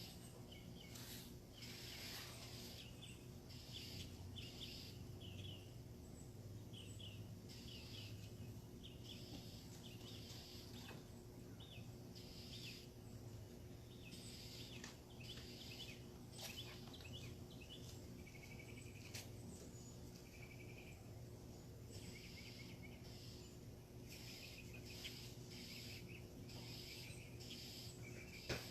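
Faint birds chirping and singing in short, repeated phrases over a steady low hum, with one sharp click near the end.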